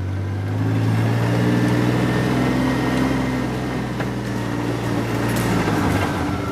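Vehicle engine running steadily while driving. Its pitch rises slightly about a second in and eases off near the end.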